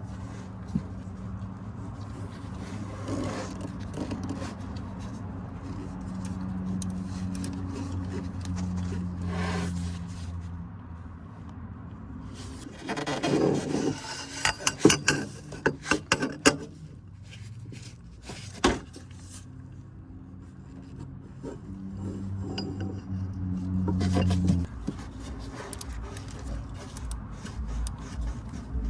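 Hand tools working on engine mount bolts: metal scraping and rubbing, with a burst of sharp ratchet clicks and metal clinks about halfway through. A steady low hum runs under the first third and comes back near the end.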